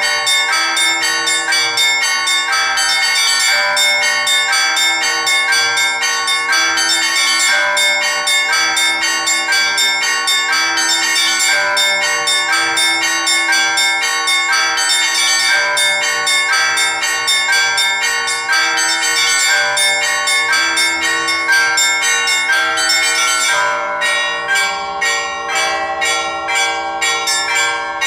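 Orthodox church bell peal of seven bells, struck by an automatic electronic bell-ringing system in a weekday ringing pattern. Fast, dense strokes of the small bells ring over the sustained tones of the larger bells. About 24 seconds in, the rapid high chiming thins to sparser strokes.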